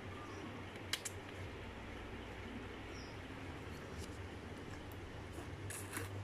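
A child eating noodles with a fork from a plastic bowl: a few faint clicks of the fork and soft slurps, a second in and again near the end, over a steady low hum.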